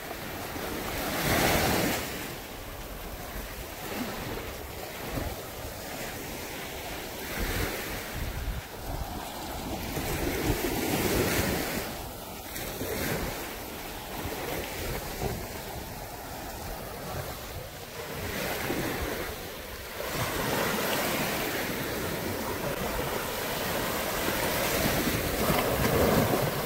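Small waves breaking and washing up a sandy shore, the wash swelling and easing every few seconds, with wind buffeting the microphone.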